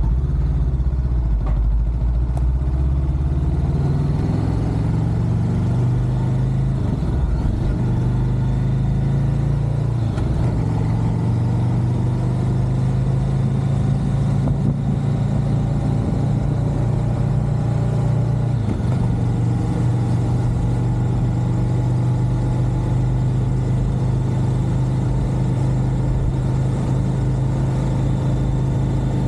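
Motorcycle engine running steadily while riding, its low drone shifting a few times and its pitch rising slowly in stretches as the bike picks up speed.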